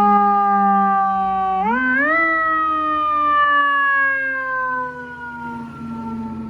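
Fire truck siren wailing in one pitched tone that holds steady, rises sharply about two seconds in, then winds down in a long, slow falling glide, fading somewhat near the end.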